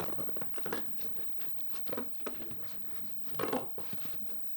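Paper rustling and crinkling as it is handled, in short irregular rustles, the loudest about three and a half seconds in.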